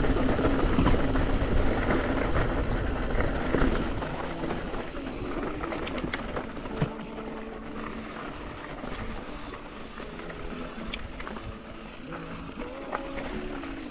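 Riding noise from a Yeti SB165 mountain bike descending a rocky dirt trail: wind buffeting the camera microphone and tyres rolling over gravel, with scattered clicks and rattles of stones and bike parts. The rumble is loudest for the first four seconds, then drops off as the rider slows.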